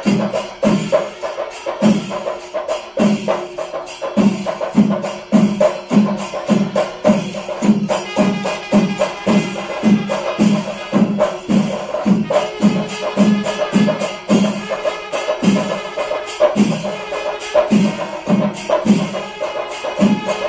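Kerala temple percussion ensemble playing live: drums beaten in a steady pulse of about two strokes a second, with hand cymbals clashing on the beats. About eight seconds in, held notes of a wind instrument join over the drumming.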